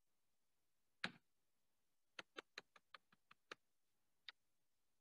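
Faint computer keyboard keystrokes: one click about a second in, then a quick run of about eight clicks and one more, from the Enter key being pressed over and over at the command line.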